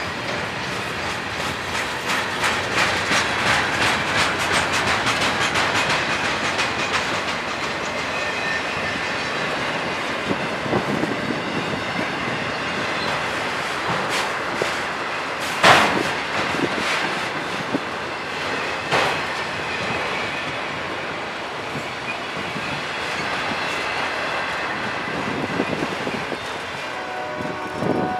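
Freight train of boxcars and autorack cars rolling past close by: a steady rumble with wheels clicking over rail joints. A single sharp bang comes a little past halfway.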